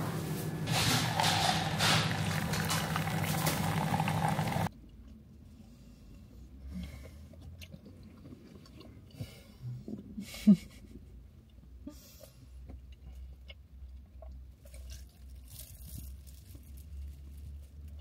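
An automatic coffee machine running, a loud steady whir over a low hum, cutting off suddenly about five seconds in. After that come quiet sounds of eating pastries and drinking coffee inside a car cabin: chewing, small rustles of paper wrappers and a few light clicks.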